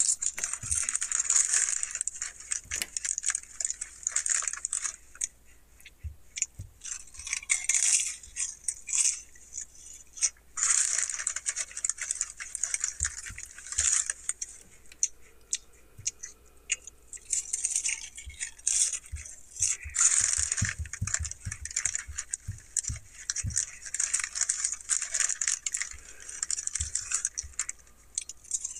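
Crinkling and rustling of a shiny Lay's potato chip bag as a hand rummages inside it for chips, in irregular crackly bursts, with a few dull knocks.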